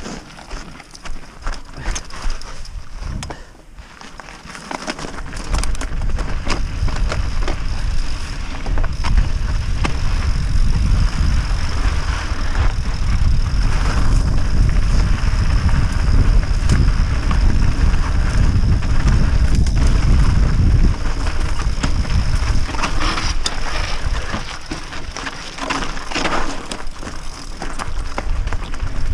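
Mountain bike ridden over rocky, gravelly dirt singletrack, heard from a camera on the bike: tyres crunching on loose stones and the bike rattling over rocks. About five seconds in, a loud low rumble of wind on the microphone sets in and dips briefly near the end.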